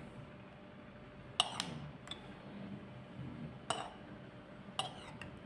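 Metal spoon clinking lightly against a glass jar a few times, at irregular moments, while pressing pepper strips down under the liquid to let air bubbles rise.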